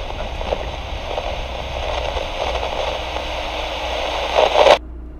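Car radio static, a hissing, crackling noise that cuts off suddenly near the end, over the low steady rumble of the Mercedes-Benz car's engine and road noise in the cabin.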